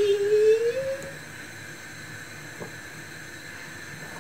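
A voice holds a long drawn-out sung note that rises in pitch and stops about a second in. After it comes quiet room hiss with one faint tap of a knife on a wooden chopping board.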